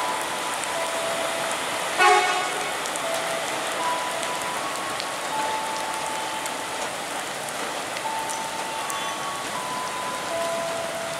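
Heavy rain falling steadily, with a short blast of a train horn about two seconds in.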